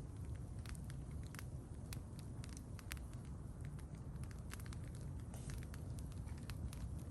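Campfire crackling, with scattered sharp pops at irregular intervals over a low steady rumble.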